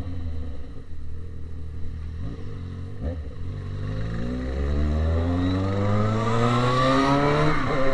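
Yamaha XJ6 inline-four motorcycle engine through an open exhaust, running at low revs and then accelerating, its pitch rising steadily and growing louder over the last four seconds.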